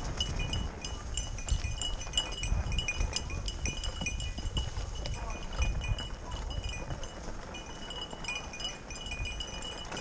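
A small bell jingling in short, irregular rings that keep the same pitch, over a rough low rumble from the bike rolling along the dirt trail.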